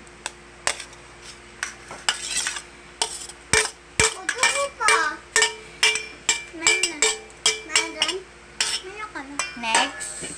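Metal spoon scraping and clinking against a steel plate and a stainless steel mixing bowl as chopped onion and chilies are pushed off the plate. The sharp clinks are rapid and irregular, with some squeaky scraping.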